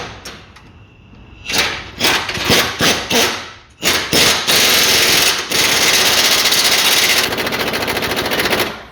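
Impact wrench hammering as it tightens a suspension control arm bolt: a few short bursts, then a continuous run of about five seconds that stops near the end.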